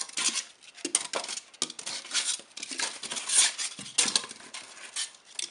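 Styrofoam packing slabs being pulled out of a cardboard box, squeaking and scraping against each other and the cardboard in a run of irregular, scratchy bursts.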